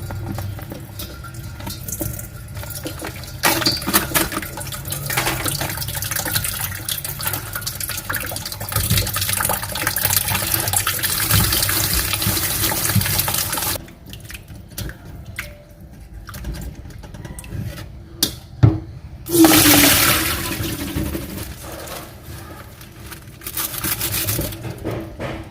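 Water running steadily from a kitchen tap, stopping abruptly a little past halfway. A few short bursts of splashing and knocking follow.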